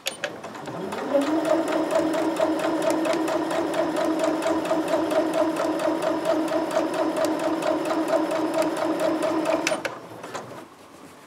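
Janome domestic sewing machine stitching: the motor winds up over about a second, runs at a steady speed for about nine seconds, then stops shortly before the end.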